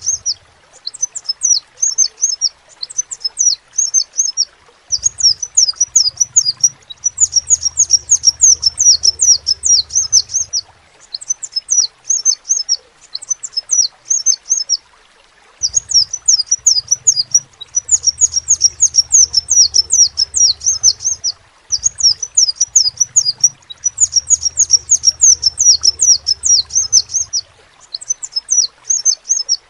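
Crimson sunbird (sepah raja) singing: rapid, high-pitched chirping phrases a few seconds long, broken by short pauses. A faint low hum comes and goes with some of the phrases.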